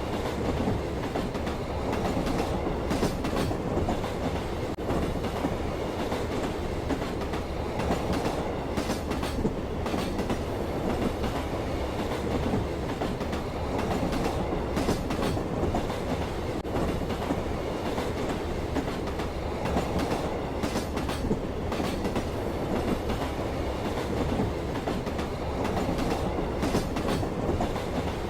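A train running steadily along the rails, a continuous rumble with occasional clacks from the wheels passing over rail joints.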